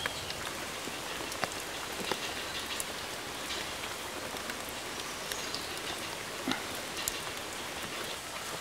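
Steady rain falling, with an occasional sharp tick of a drop striking.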